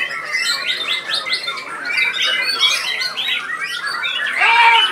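White-rumped shamas singing, a dense run of rapid, sweeping whistled notes mixed with harsher notes, with several birds overlapping. The loudest burst comes near the end.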